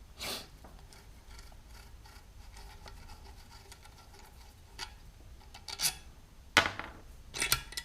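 Metal tools and parts being handled during a cylinder-head valve job: light scraping with a few sharp clicks and clinks, the loudest about two-thirds of the way in with a short ringing tail.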